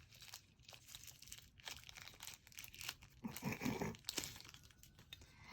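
Plastic packaging crinkling and tearing in irregular crackles as a boxed toy figure is unwrapped by hand.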